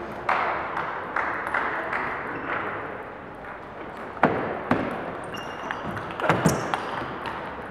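Table tennis balls clicking off bats and tables during a rally, a string of sharp, irregularly spaced hits, the loudest about four seconds in and twice more a little after six seconds, with more hits from neighbouring tables in a large sports hall.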